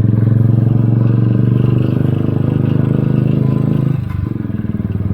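Motorbike engine running steadily under way; about four seconds in the throttle eases off and it runs on more quietly.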